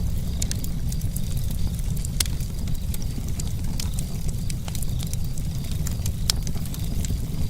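Campfire burning with a steady low rumble and irregular sharp crackles and pops of the burning wood.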